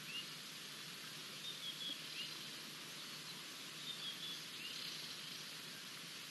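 Steady outdoor hiss with short, high bird chirps repeating every second or two.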